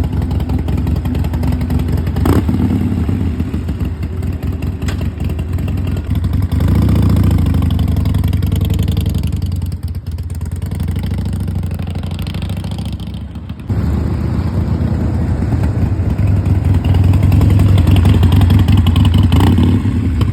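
Harley-Davidson Forty-Eight's air-cooled V-twin running with the throttle worked: it swells about six seconds in, drops back twice, and is held higher again near the end.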